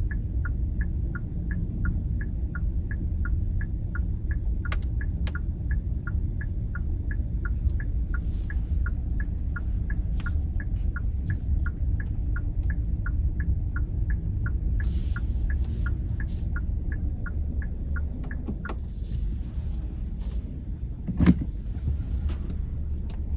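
Inside a Kia K3's cabin at low speed, a low engine and road rumble runs under the turn-signal indicator ticking evenly about twice a second. The ticking stops about three-quarters of the way through, and a single sharp knock comes near the end.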